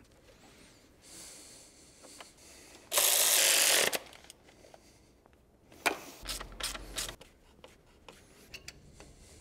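Hand tools at the alternator mounting of a BMW M54 engine: ratchet wrench clicks and metal clinks, scattered over the second half. A loud burst of noise lasts about a second, about three seconds in.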